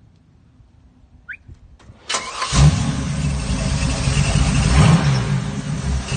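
Chevrolet 502 big-block V8 crate engine with headers and 3-inch exhaust pipes starting about two seconds in, then running steadily.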